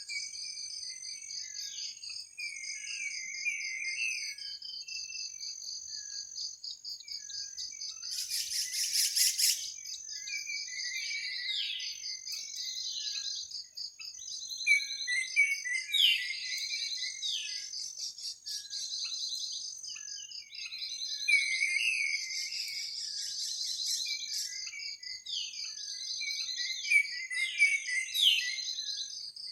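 Forest insects trilling continuously in a high, pulsing band, with birds chirping repeatedly over them in short notes and quick downward calls. A louder harsh burst of high sound comes about eight seconds in.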